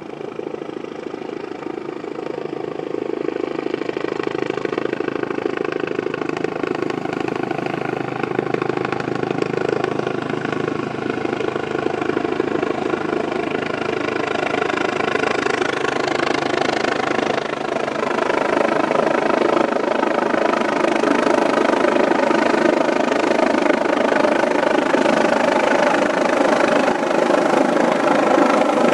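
Air ambulance helicopter approaching to land overhead: steady rotor and turbine noise that grows louder as it comes in, with a further rise about two-thirds of the way through.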